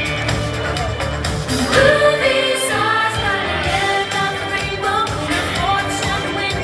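Pop song playing, with a singing voice coming in about two seconds in over the accompaniment.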